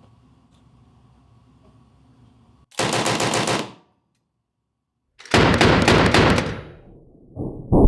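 Lewis light machine gun firing .303 rounds in two short bursts of automatic fire: the first about a second long, starting a little under three seconds in, the second, slightly longer, about two and a half seconds later. A lower, muffled sound starts just before the end.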